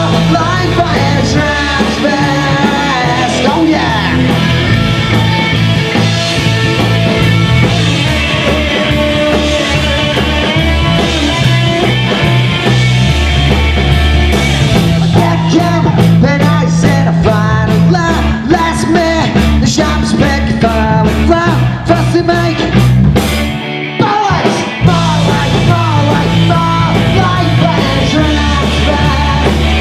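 A rock band playing live and loud: a singer over drums and guitar, with heavy bass. The band stops for about a second near the end, then comes back in.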